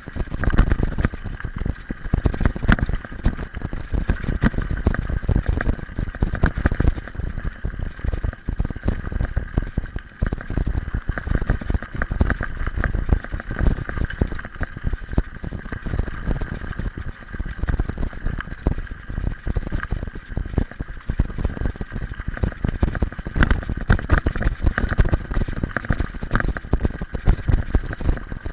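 Mountain bike rolling over a loose gravel road: tyres crunching on stones and a constant rattling, jolting rumble carried up through the bike-mounted camera.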